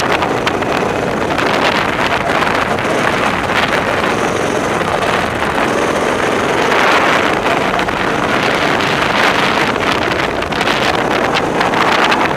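Go-kart engine running as the kart laps, mixed with heavy wind noise on the helmet-mounted microphone; the rushing noise swells about halfway through and again near the end.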